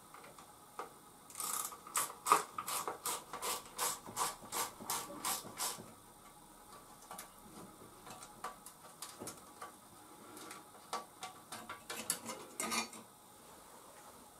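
Hand-tool work on a moped: a run of rhythmic rasping strokes, about three a second for some four seconds, then scattered light clicks and knocks.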